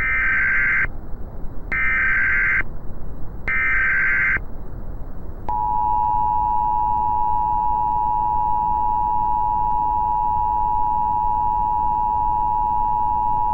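Emergency Alert System SAME header: three short, evenly spaced bursts of warbling data tones, followed by the EAS two-tone attention signal held steady for about eight seconds. A steady background hiss runs underneath.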